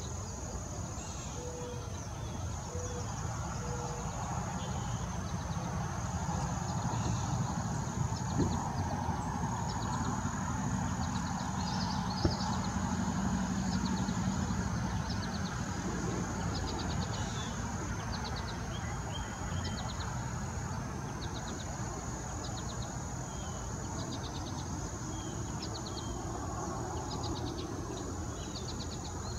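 Summer marsh ambience: a steady high insect trill that breaks off briefly every few seconds, short runs of rapid high ticks, and a low rumble underneath that swells in the middle.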